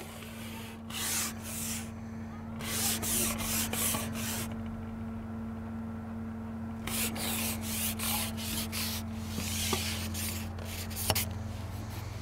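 Carbon fishing pole being slid back by hand in several spells, a rubbing, swishing sound each time, as a hooked carp is played on the pole elastic.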